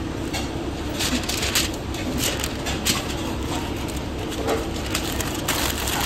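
Paper sandwich wrapper crinkling in several short rustles as a sandwich is folded and wrapped, over a steady low rumble.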